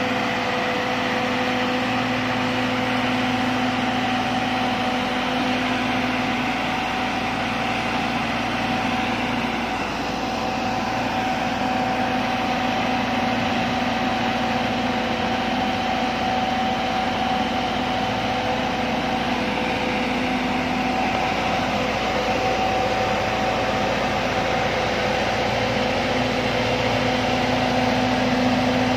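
Boat travel lift's engine running steadily as the gantry drives slowly across the yard with a boat in its slings: an even drone with a low, steady hum.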